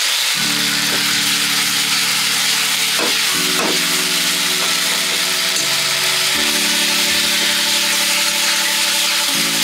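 Stir-frying in a wok: steady sizzling of sauce-coated soya chunks and vegetables, with a spatula scraping and pushing the food across the pan. Sustained background music chords come in about half a second in and change every three seconds or so.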